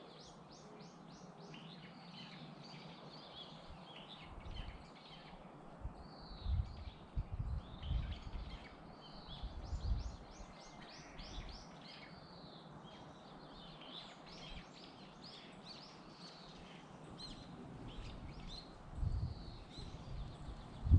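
Wild birds singing and calling, several overlapping songs with arcing notes and quick runs of high notes. Low rumbling thumps come and go in the middle and near the end.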